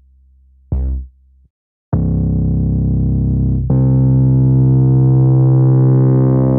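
Arturia V Collection software synthesizer playing low notes: a short decaying note about a second in, then a held low note from about two seconds in, joined by a louder sustained note near four seconds.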